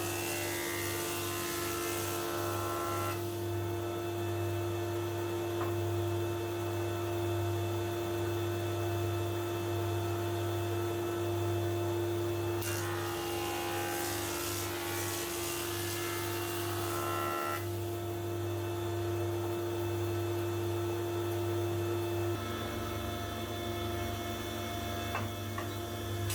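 Electric woodworking machine running with a steady motor hum. Twice it takes on a rougher, fuller noise for a few seconds, and its tone shifts near the end.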